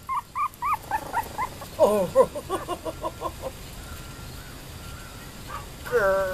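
Young Tibetan terrier puppies, about three weeks old, whimpering and yipping. A quick run of short, high, arched squeaks, about four a second, is followed by lower whines over the first three seconds or so. Near the end comes one longer whine that falls in pitch.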